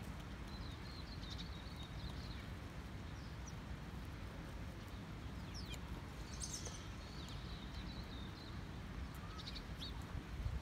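A wallaby chewing a piece of carrot, with faint crunching clicks, over a steady low rumble. Small birds chirp high in the background now and then.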